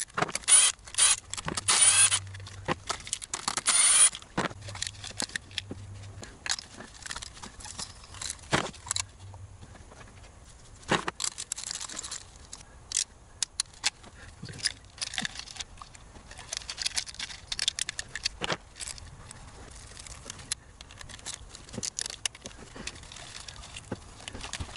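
Sped-up sounds of work on ignition coil bolts and spark plugs: a cordless screwdriver runs in short bursts over the first four seconds, and again briefly later. Throughout there is a quick run of clinks, clicks and scrapes from tools and metal parts being handled.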